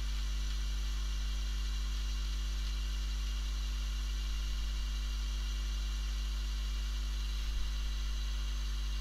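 Steady electrical mains hum, with a constant hiss above it. There is a light knock about seven and a half seconds in.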